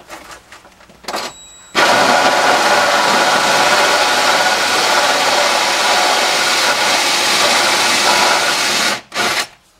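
Cordless drill with a spring-loaded spot weld cutter bit drilling into a spot weld in the car's rusty sheet-steel floor pan. It runs steadily for about seven seconds from about two seconds in, then gives one short burst after it stops.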